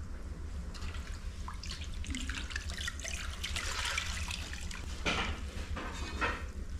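Water sloshing and dripping in an enamel basin as hands scoop out soaked snow fungus (tremella), squeeze the water from it and drop the wet clumps onto a metal tray. The splashing comes in irregular spurts, busiest in the second half.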